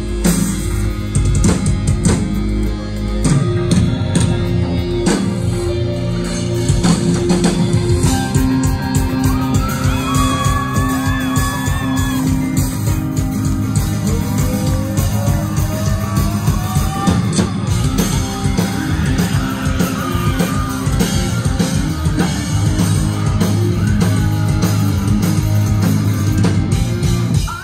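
Live rock band playing loud through a club PA: distorted electric guitars, bass and a steady drum beat, with a singer's voice over it.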